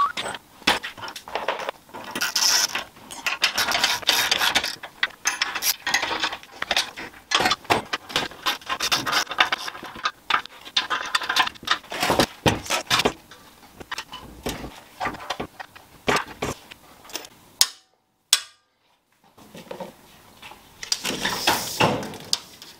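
Workshop clatter: metal tools and parts clinking, rattling and scraping in irregular bursts, with no steady machine running. It stops dead for about a second about eighteen seconds in, then a few more scrapes follow.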